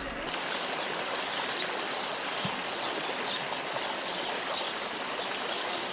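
Steady rush of a shallow river flowing over stones, with a few faint high chirps over it.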